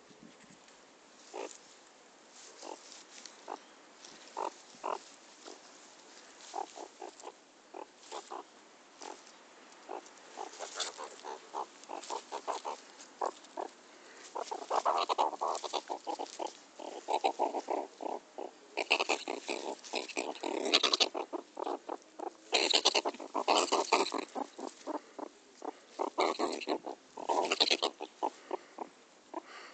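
Pet meerkat vocalising in quick runs of short calls, sparse at first and growing louder and busier about halfway through, with sharper, higher calls in the last third: a meerkat being teased by a hand.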